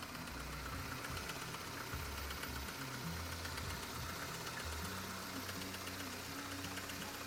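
Car engine idling with an extraneous, uneven knock heard near the timing belt; its cause is unknown to the owner.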